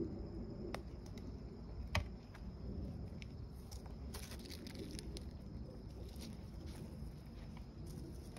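Soft footsteps and rustling of someone walking slowly outdoors, with two sharp clicks, one just under a second in and a louder one about two seconds in.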